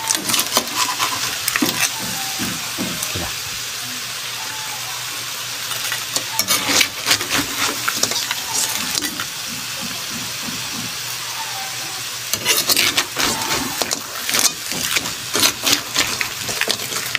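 Boiled crabs being stirred with a long-handled spoon in a large aluminium pan, the shells clattering and scraping against the pan in three bouts of rapid clicks. A steady cooking hiss runs underneath.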